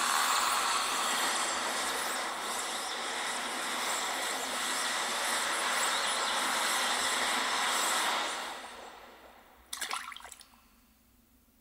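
A loud, steady rushing noise that fades away after about eight seconds, followed by a brief splash in water about ten seconds in.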